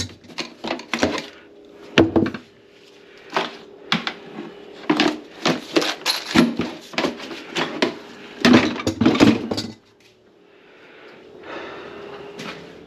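A string of irregular clattering knocks and scrapes of hard objects being handled, over a faint steady hum. They stop about ten seconds in, and a soft steady hiss follows near the end.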